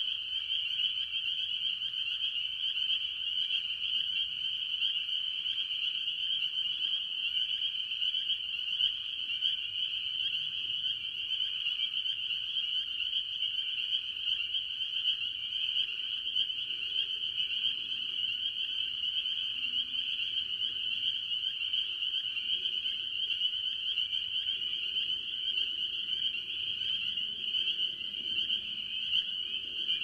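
A dense chorus of spring peepers: a steady, unbroken mass of high-pitched overlapping peeps. Other tree frogs call more faintly and lower beneath them.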